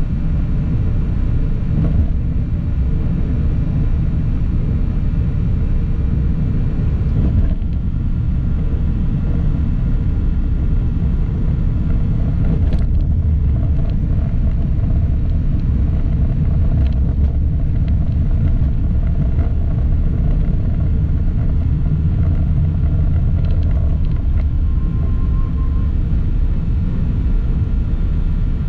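Steady low road rumble of a vehicle driving through traffic, heard from the moving vehicle, with a brief faint horn-like tone near the end.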